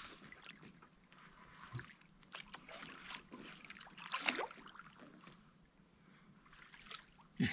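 Faint water sloshing and small knocks and rustles as a person shifts their weight on an inflatable air mattress floating on water, with one brief, louder sound about four seconds in.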